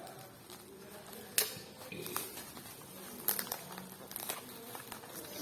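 Hot Wheels packages being handled: crinkling of packaging with a few sharp clicks, the loudest about a second and a half in.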